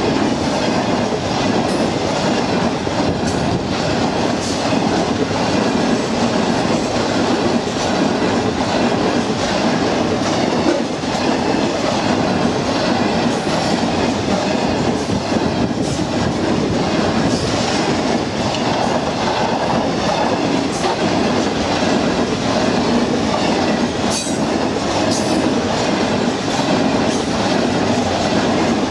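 Freight train of copper concentrate container wagons rolling past close by: a steady rumble and rattle of steel wheels on the rails, with scattered sharp clicks and clacks as the bogies pass.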